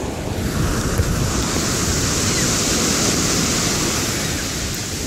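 Ocean surf washing up over sand, a steady hiss of breaking foam that swells about a second in and eases near the end.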